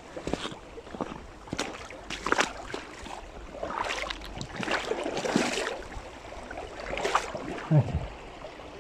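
Irregular footsteps and rustling, with a brief low sound that falls in pitch shortly before the end.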